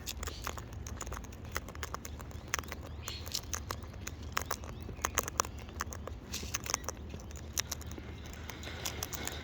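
Wild birds pecking and cracking seed at a feeding table: irregular sharp clicks and taps, several a second, over a steady low hum.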